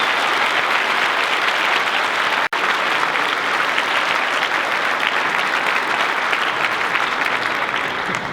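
Audience applauding: dense, steady clapping, broken for an instant about two and a half seconds in.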